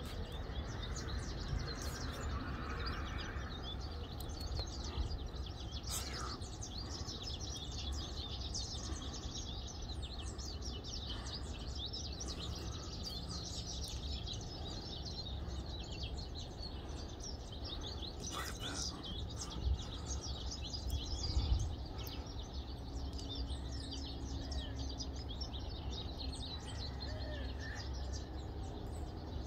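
Many small birds chirping continuously in a dense chorus of short, high calls, over a steady low background rumble. A brief low bump about two-thirds of the way through is the loudest moment.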